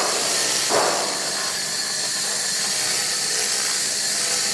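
Handheld 3-in-1 laser welding and cleaning machine working on metal: a steady hiss from the laser head.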